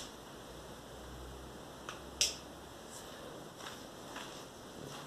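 A single sharp click of a light switch being flipped off, with a fainter tick just before it, over a faint low hum.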